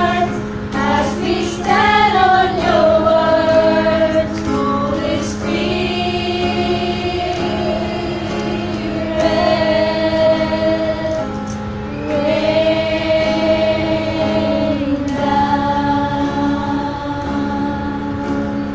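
A small group of women singing a worship song together, with long held notes, accompanied by an acoustic guitar.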